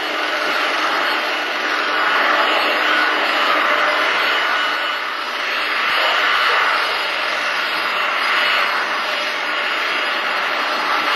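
Jet engines of a Boeing 767-300ER airliner running as it moves along the ground, a steady rushing whine that swells a few times, loudest around two to three seconds in and again near the middle.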